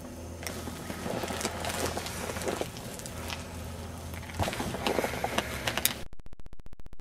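Handling noise from a handheld camera: irregular crackling, rustling and clicks over a steady low hum as the camera is moved around. About six seconds in, the sound breaks into a fast, even stutter.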